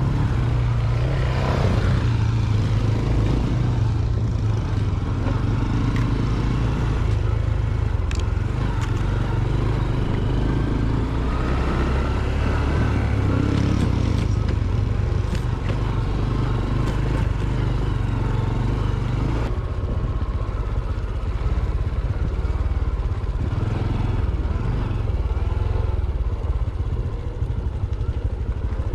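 Honda Trail 125's single-cylinder engine running steadily as the bike is ridden off-road, with a few sharp clicks and clatters. Near the end the sound turns choppy and pulsing.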